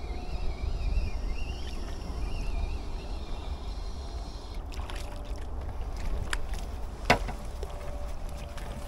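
Wind rumbling on the microphone beside the water, with scattered light clicks from about halfway through and one sharp click about seven seconds in.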